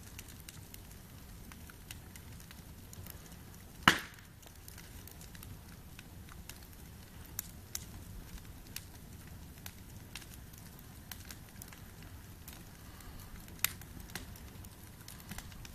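Small wood campfire crackling, with scattered sharp pops and one loud pop about four seconds in.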